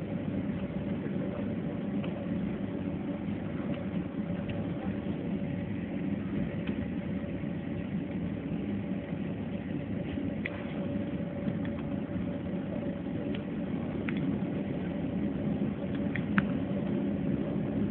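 Jet airliner's engines running steadily, heard inside the passenger cabin as a constant drone with a steady tone in it, with a few light clicks, the loudest near the end.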